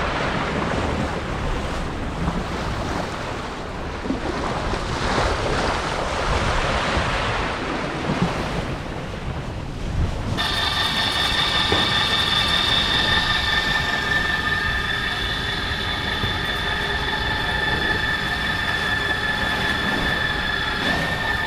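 Wind buffeting the microphone and water rushing past a sailing yacht under way. About ten seconds in it changes abruptly to a steady mechanical running sound with a high, even whine.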